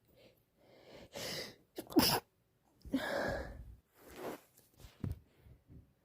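A woman's sneezing fit: quick breaths building up, a sharp sneeze about two seconds in, a second long breathy burst, then short sniffles.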